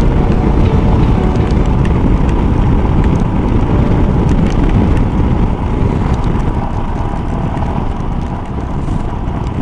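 Wind rushing over a motorcycle rider's microphone at road speed, heavy and low, with a faint steady engine tone beneath it; it eases slightly after about six seconds.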